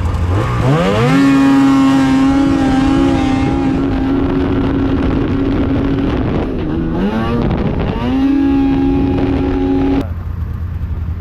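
Snowmobile engine revved up quickly and held at high revs, dropping briefly and revving up again, then cutting off suddenly near the end.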